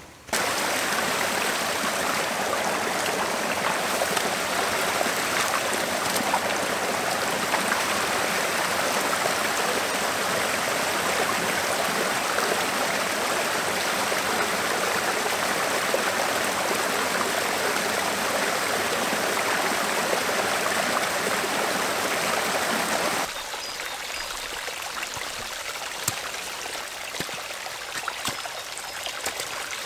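Small forest creek running over rocks and little cascades: a steady rush of water. About three-quarters of the way through it cuts to a quieter trickle with scattered light ticks.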